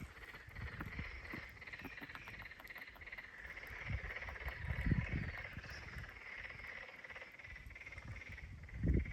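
Frogs calling in a steady, fast-pulsed trilling chorus that stops just before the end. Low thumps come about five seconds in and again near the end.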